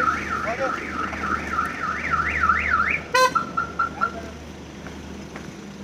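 Electronic alarm siren cycling through its tones: a fast up-and-down warble for about three seconds, a brief rapid chirping, then a steady high tone that cuts off about four seconds in.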